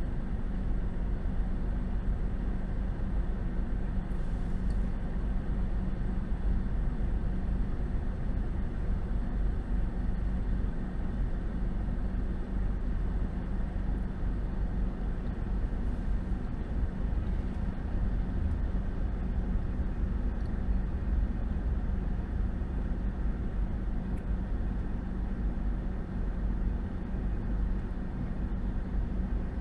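Steady road and engine noise of a car driving on a highway, with a low hum.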